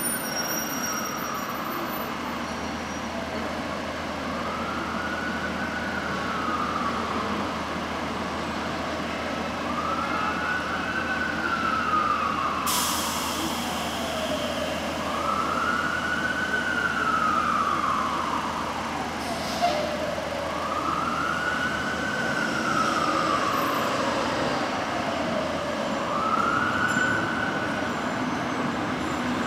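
Emergency vehicle siren in a slow wail, rising quickly and then falling, about every five seconds over city traffic noise. A short hiss cuts in about 13 seconds in.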